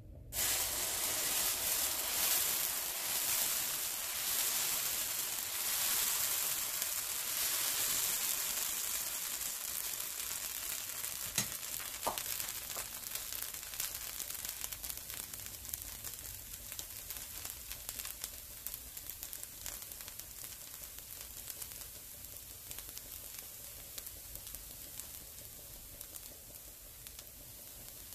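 Thin dosa batter sizzling on a hot, oiled cast-iron skillet. The hiss starts suddenly as the batter hits the pan and slowly dies down as the dosa cooks, with one brief knock about eleven seconds in.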